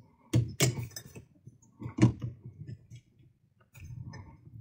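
A few sharp clicks and knocks as test leads, alligator clips and a multimeter are handled on a workbench, the loudest about a third of a second, two-thirds of a second and two seconds in.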